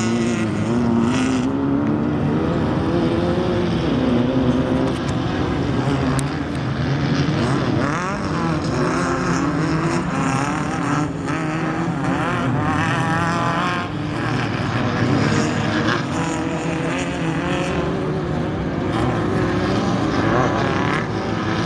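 Race vehicle engines running and passing on the course, their pitch rising and falling as they rev and ease off.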